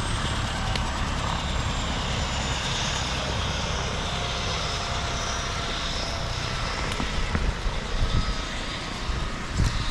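Light helicopter on the ground with its turbine engine running and main rotor turning: a steady thin turbine whine over rotor noise. A few louder gusts come near the end.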